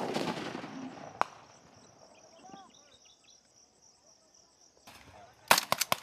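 Gunfire: a loud shot at the start rings out and echoes for about a second, and a single shot follows about a second later. Near the end comes a rapid burst of about seven shots of automatic fire. In the quiet between, an insect chirrs steadily.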